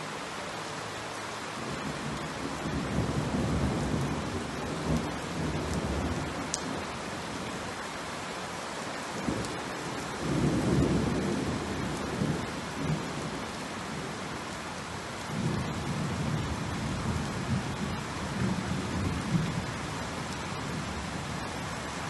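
Rain falling steadily on brick paving, a constant hiss. Three spells of low rumbling rise over it: around two seconds in, around ten seconds in, and from about fifteen seconds to twenty.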